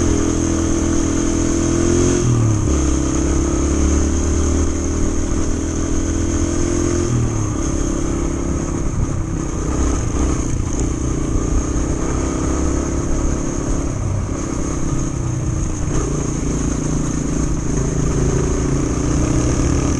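Yamaha TT-R125 dirt bike's single-cylinder four-stroke engine running under way on a dirt road, heard from the bike itself. The engine note steps down twice, about two and seven seconds in.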